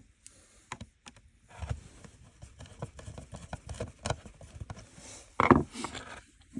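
Small screws being driven back into a car light-control switch panel by hand: a run of light, irregular clicks and taps of screwdriver, screws and plastic housing, with one louder knock about five and a half seconds in.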